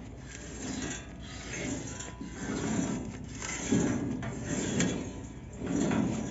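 Sheet-metal parts inside a homemade corn sheller being handled and shifted, with uneven metal scraping and rubbing and a few light clicks.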